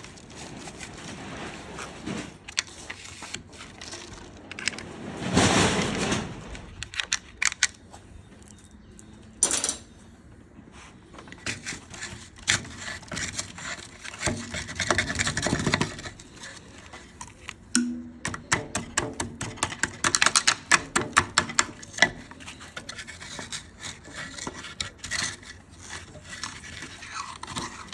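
Hand work with tools and parts: scraping and rubbing spells broken by sharp clicks and knocks, with a dense run of clicks about twenty seconds in.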